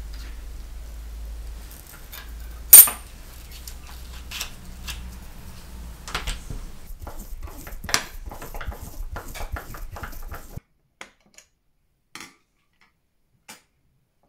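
Small metal clicks and clinks as a Stanley utility knife is handled and the screw in its metal body is turned with a screwdriver to change the blade, with one sharp, loud click about three seconds in. A low hum underneath cuts off suddenly about ten and a half seconds in, leaving only a few faint ticks.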